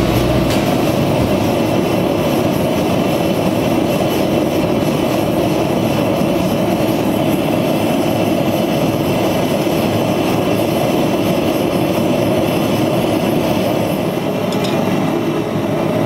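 Gas forge burner running, a steady, even rush of flame.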